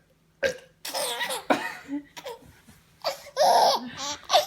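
Baby laughing at his father's burps in a string of short bursts, with the longest and loudest burst near the end.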